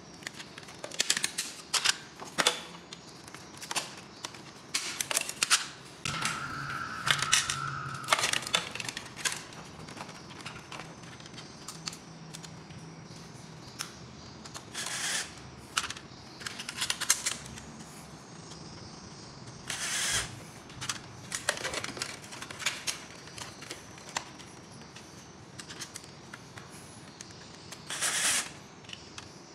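Sharp clicks and knocks of plastic socket plates, wires and tools being handled, with a cordless drill-driver whirring briefly a couple of times as it drives the socket screws.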